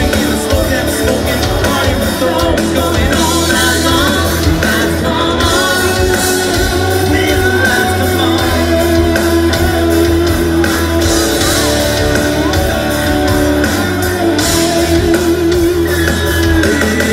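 Live amplified rock band playing a song, with singing over electric guitars, bass guitar and drums.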